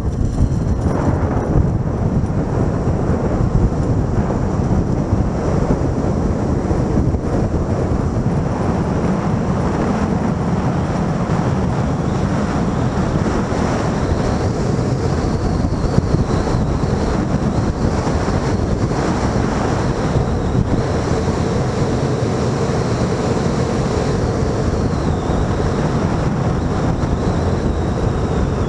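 Steady, loud wind buffeting the microphone of a rider travelling down a high-speed zip wire at close to 100 mph. A faint high whine comes and goes.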